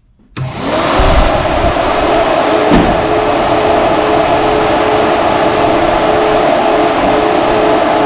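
Pair of SPAL electric radiator cooling fans switched on, spinning up within about a second to a loud, steady rush of air with a steady motor hum, as a first test of the new fan wiring. A single light thump about three seconds in.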